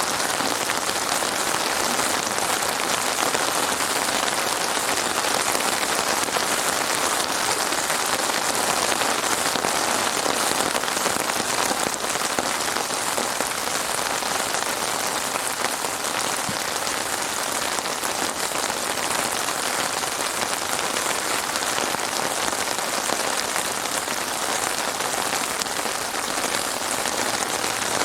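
Heavy rain falling steadily, a dense even patter of raindrops on surfaces.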